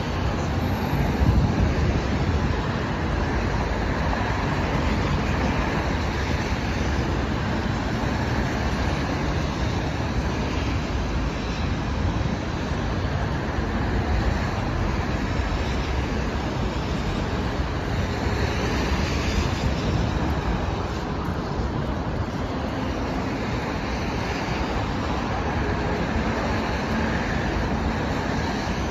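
Steady city road traffic noise: cars running along a wide avenue on a wet road.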